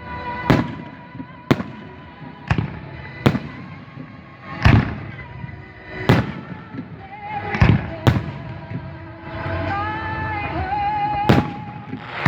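Fireworks bursting: a string of about nine sharp bangs, irregularly spaced about a second apart. Music plays underneath, more clearly in the second half.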